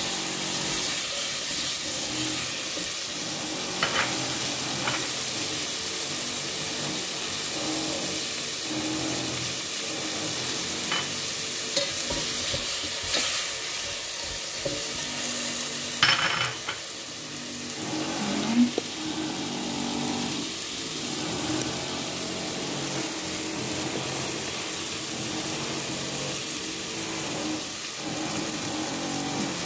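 Tomato wedges and shallots sizzling as they fry in oil in a granite-coated pot, with a steady hiss. A few sharp clicks come as tongs knock against the pot while turning them, the loudest about halfway through.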